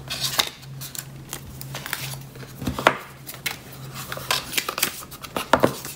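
Paper and card packaging inserts from an iPhone box being handled: rustling with scattered light taps and clicks, and a few sharper clacks near the middle and the end as the moulded paper tray is lifted out. A low steady hum runs underneath.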